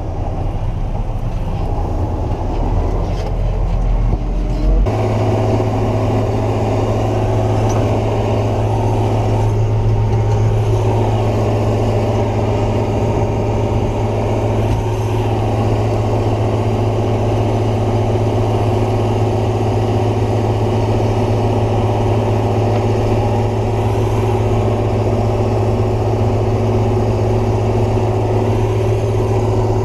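Massey Ferguson 6270 tractor engine running steadily. Its note steps up about five seconds in and then holds as it pulls a heavily loaded grain trailer.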